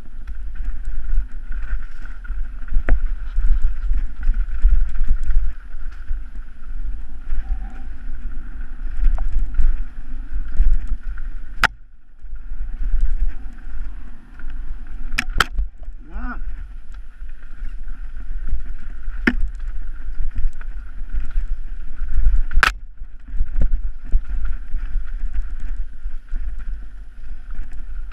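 Wind buffeting a helmet-mounted camera's microphone during a fast mountain-bike descent on a dirt trail, with a steady rumble from the rough ground. Several sharp knocks from the bike and camera jolting over bumps, the loudest near the end, and a brief wavering squeal about halfway through.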